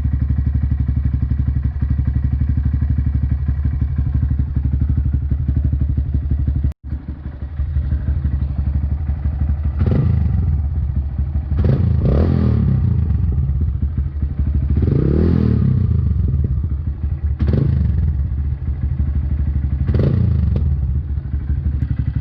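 Honda Grom's small single-cylinder motorcycle engine idling steadily, freshly started with flush oil in it. After a sudden cut about seven seconds in, the engine runs at varying speed, its revs rising and falling about five times.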